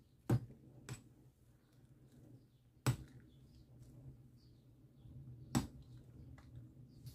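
A metal ladle knocks against the rim of a stainless steel pot while stirring boiling spinach: three sharp clinks about two and a half seconds apart, with a lighter one just after the first. A low steady hum and the faint bubbling of the boiling water run underneath.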